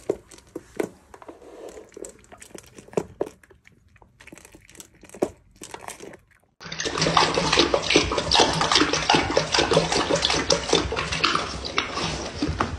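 A puppy eating kibble from a plastic slow-feeder bowl, with scattered small crunches and clicks. From about six and a half seconds in, a dog laps water from a stainless steel bowl, loud and rapid, with quick wet slurps.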